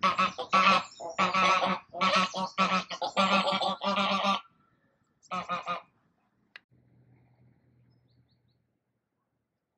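Domestic geese honking: a run of loud, harsh calls lasting about four seconds, then one more short burst about a second later.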